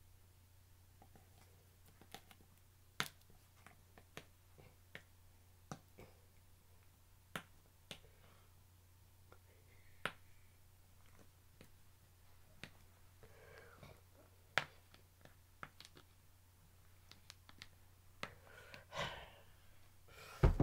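Sharp, irregular clicks and creaks of hands straining to twist the screw lid of a plastic jar, over a low steady hum. A rustle and a loud thump come near the end.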